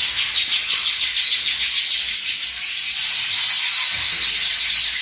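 Weaver birds chattering: a dense, continuous chorus of rapid high chirps from many birds at once.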